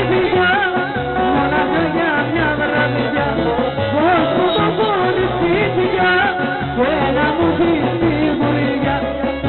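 Live Greek folk dance music: a woman sings an ornamented melody into a microphone, with a clarinet and a steady repeating bass accompaniment, all played loud through PA speakers.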